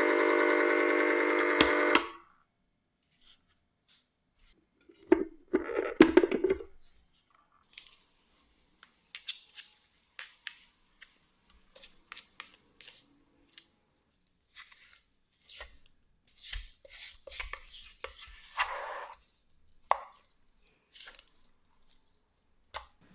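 Ice cream maker's electric motor running with a steady hum, cutting off about two seconds in. Then scattered clicks and knocks as the paddle and motor unit are handled, and a spatula scraping and plopping through thick, freshly churned ice cream in the frozen bowl.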